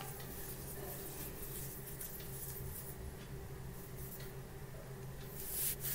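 Faint scratchy strokes of a fine paintbrush working purple poster paint on a metal palette tray, over a low steady hum, with a slightly louder brief rustle near the end.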